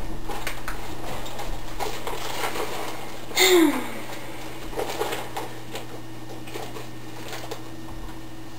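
Handling noise of people shifting on a couch, with crinkling of a snack bag and scattered clicks and knocks, thinning out after about four seconds. About three and a half seconds in comes a short squeal that falls in pitch. A steady low hum runs underneath.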